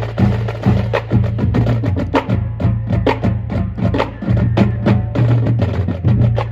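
A marching drumline playing: rapid snare and tenor drum strokes over steady pounding bass drums, in a driving rhythm.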